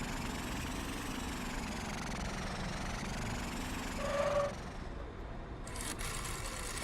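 Cartoon vehicle engine running steadily under a faint wavering high tone, with a short pitched note about four seconds in; sharp music hits come in near the end.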